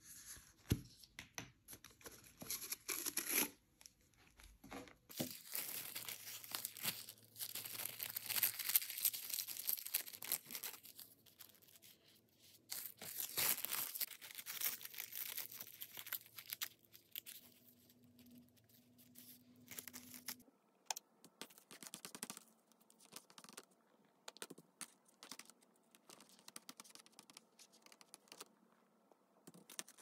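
Paper being torn and crinkled by hand, in irregular scratchy strokes with short pauses between them.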